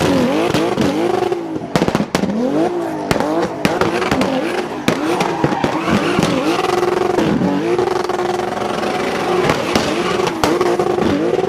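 Turbocharged drift car engine revving up and down again and again, with sharp exhaust pops and bangs typical of anti-lag, over tyres squealing as the car slides.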